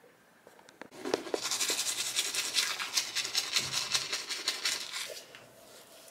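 Toothbrush scrubbing teeth in quick back-and-forth strokes. It starts about a second in and stops around five seconds in.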